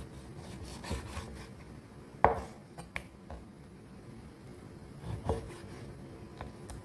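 Large kitchen knife slicing through raw pork on a wooden chopping board: strokes of the blade through the meat, with a few knocks of the blade on the board, the sharpest a little over two seconds in.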